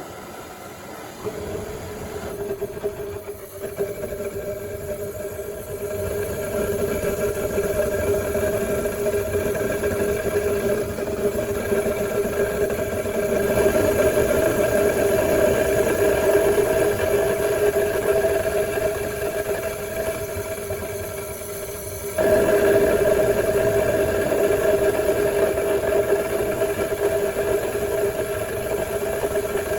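Air blower driving a homemade oil burner, running with a steady hum that comes in about a second in and steps louder about 22 seconds in.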